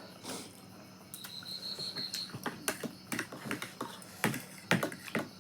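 Close-up eating sounds: a run of sharp clicks, smacks and crunches from chewing and utensils, loudest about four seconds in. A brief high steady tone sounds about a second in.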